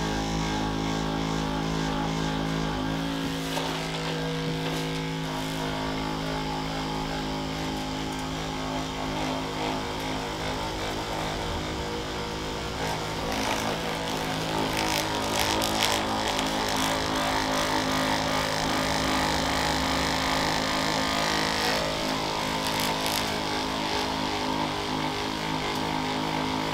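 Handheld percussion massage gun running steadily as it is worked over the legs, a continuous motor hum that shifts about three seconds in.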